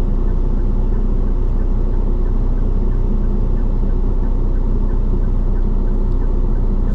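Steady drone of a motorhome's engine and road noise heard inside the cab while driving.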